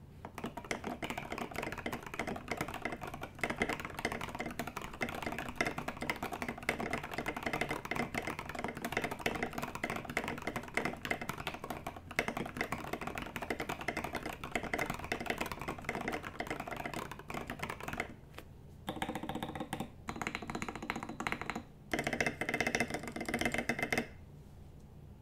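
Fast, continuous typing on a Rama U80-A aluminium mechanical keyboard with linear switches, tall SA keycaps and a silicone case dampener: a dense run of key clacks. About 18 seconds in it pauses briefly, then comes back in two shorter passages before stopping near the end.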